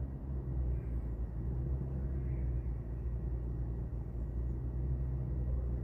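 Saturn Outlook's 3.6-litre V6 idling with a steady low rumble; the owner is chasing a slight misfire and timing codes on this engine.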